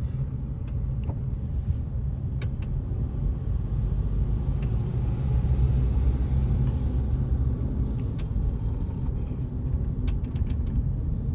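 Steady low rumble of a car driving in slow traffic, heard from inside the cabin: engine and tyre noise with a few faint clicks.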